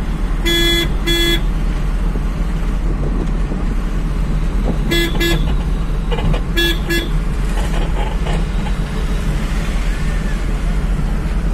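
A vehicle horn beeping in three quick double taps, each pair the same pitch, over the steady engine and road noise inside the cab of a moving Tata vehicle.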